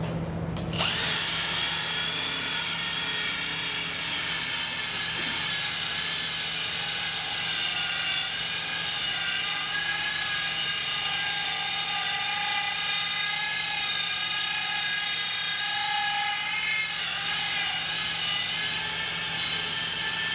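Cordless drill spinning a bimetal hole saw into cement board (HardieBacker), starting about a second in: a steady high whine with grinding. It is a slow cut, the bimetal teeth making little headway in the abrasive board.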